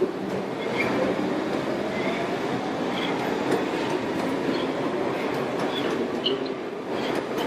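Subway train running: a steady rumbling rattle with drawn-out metallic tones and short high squeals from the wheels on the rails.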